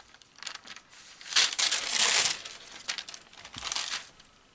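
Greaseproof paper and a freshly ironed, fused Angelina fibre sheet crinkling as they are lifted and handled. A run of rustles, loudest between about one and a half and two and a half seconds in.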